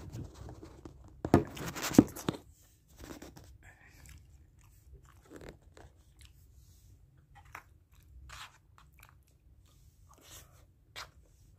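A few loud knocks and rubbing as the phone is handled and set down, about a second and a half in, then scattered soft clinks and scrapes of a spoon and fork in a plastic takeaway tray, with chewing.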